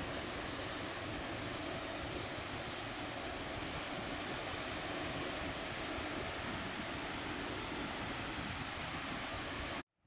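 Ocean surf washing steadily, with no distinct wave crashes standing out, cutting off abruptly near the end.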